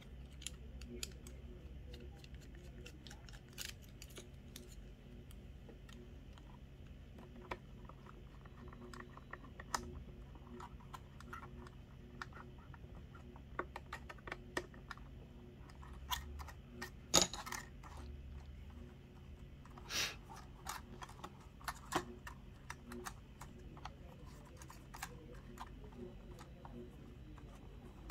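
Scattered small clicks and taps of a screwdriver and hard plastic drone parts being handled while propeller blades are moved onto a DJI Mini 2's new arm, with a few louder knocks past the middle.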